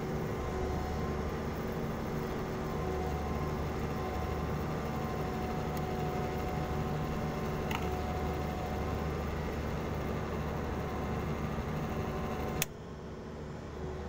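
Washing machine wash motor running with a steady hum, turning slowly; it cuts off suddenly with a click near the end. The owner suspects the slow, hot running comes from failed winding insulation.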